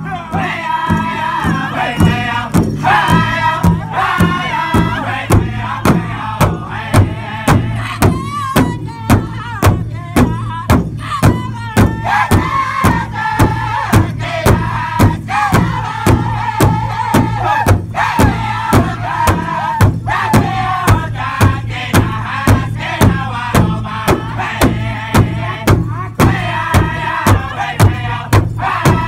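Powwow drum group performing a crow hop song: several men strike a large hide drum in unison in a steady beat while singing together in high voices.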